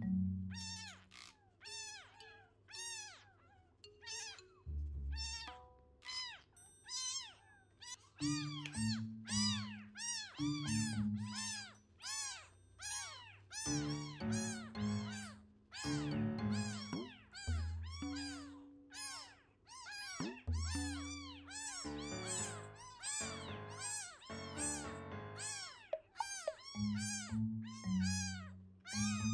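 Baby kitten mewing over and over in thin, high cries, one to two a second, while a tissue is rubbed on its underside. Soft background music plays underneath.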